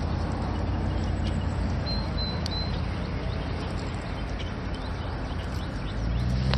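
Steady rush of river water with no break. A brief, faint high chirp about two seconds in.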